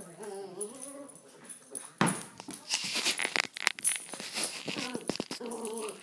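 A small miniature pinscher cross dog whining and growling in a run of drawn-out, wavering vocal sounds, with a louder, harsh and noisy stretch in the middle.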